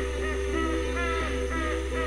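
Background music: short pitched notes repeating several times a second over a steady low bass note.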